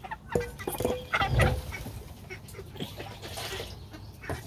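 Chickens clucking and calling in short scattered notes, with a louder knock about a second and a half in.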